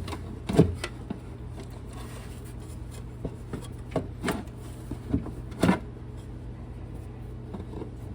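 Scattered knocks, clicks and rubbing as a hydraulic hose is handled and pushed onto the fitting at the bottom of an oil tank, over a steady low hum. The clearest knocks come about half a second in and a little past halfway.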